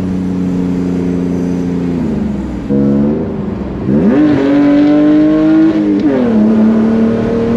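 BMW E46 3 Series engine heard from inside the cabin while being driven through the gears. It holds steady, falls away about two seconds in, and climbs under acceleration about four seconds in. It drops with an upshift about six seconds in, then rises again.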